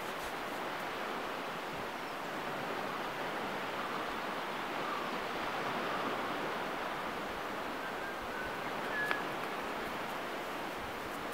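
Steady hiss of surf breaking along a sandy beach, with a short high chirp about nine seconds in.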